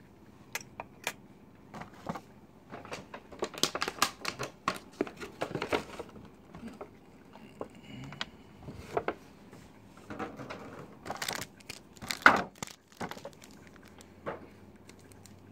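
Plastic and foil packaging from a Pokémon trading card collection box crinkling and rustling as it is handled, with irregular taps and clicks; the loudest crackle comes about three-quarters of the way through.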